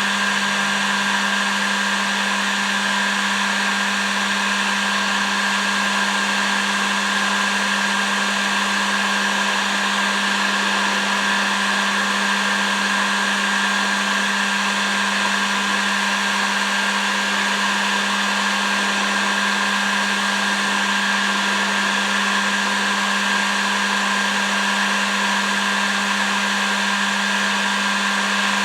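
Electric heat gun blowing hot air steadily, a constant fan rush with a steady whine, used to shrink heat-shrink tubing onto plier handles.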